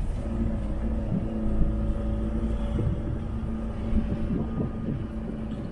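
Camper van driving along a road: a steady engine drone with heavy road rumble.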